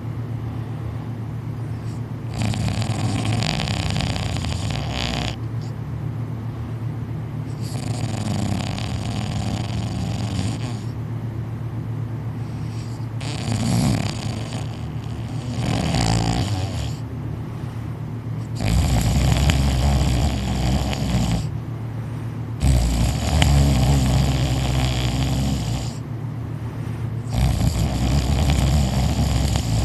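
Loud snoring from someone sleeping deeply, about seven snores each a few seconds long, one every four to five seconds. The snores in the second half are louder, with a deep rumble.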